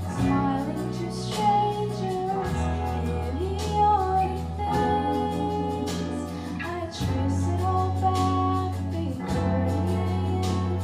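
A song with a sung melody over strummed guitar and a low bass that changes note every couple of seconds.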